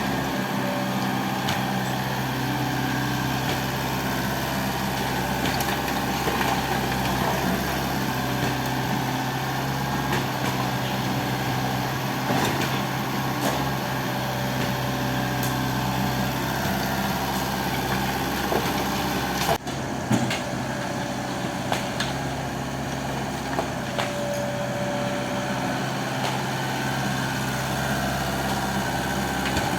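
Excavator's diesel engine running steadily, with scattered knocks and clatters over it and a sharper knock about two-thirds of the way in.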